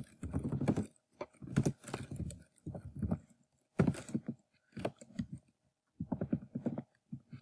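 Typing on a computer keyboard: irregular runs of key clicks and thuds with short pauses between them.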